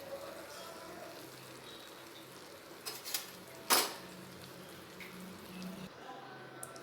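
Metal kitchen utensils clinking a few times against cookware, the loudest knock about three and a half seconds in, over a faint steady hiss.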